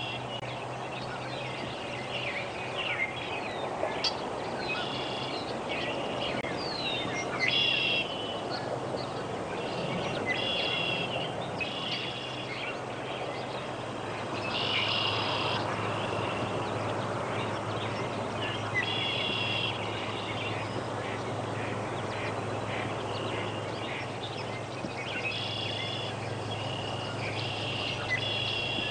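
Marsh ambience: short buzzy calls from birds or frogs repeating every second or two, with a few quick chirps, over a steady low hum and a wash of outdoor noise.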